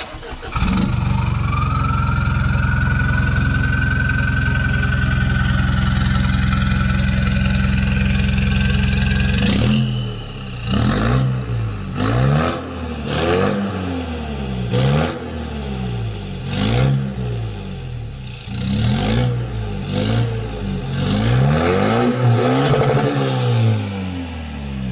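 Mitsubishi Pajero Sport's 4N15 2.4-litre four-cylinder turbodiesel cold-starting through a custom ORD exhaust. It catches about half a second in and settles to a steady fast idle with a faint whine. About ten seconds in, the throttle is blipped over and over: the engine revs up and drops back about once a second, a turbo whistle rising and falling with it, and sharp pops from the remapped ECU's popcorn mode.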